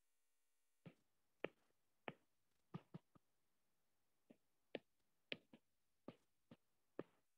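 Stylus tip tapping on a tablet's glass screen while handwriting: about a dozen faint, short clicks at irregular intervals over near-silent room tone.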